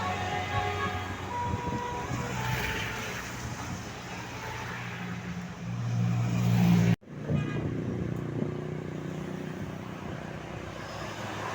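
Road traffic, with a large tour bus's diesel engine running as it goes by. A short horn tone sounds about a second and a half in. The sound breaks off abruptly about seven seconds in, then the traffic noise carries on.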